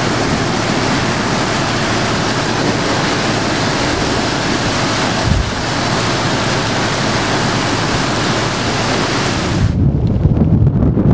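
Hurricane wind driving heavy rain, a steady loud hiss. Near the end it switches to lower, gusty wind buffeting the microphone.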